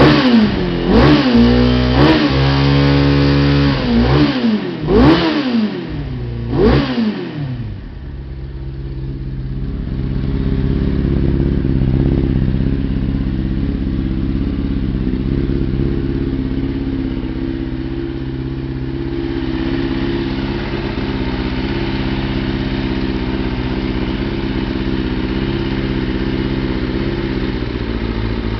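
Kawasaki ZX-6RR inline-four motorcycle engine blipped quickly about five times, then settling into a steady idle. It is running with freshly cleaned spark plugs, the misfire and fluffy running cured by the owner's account.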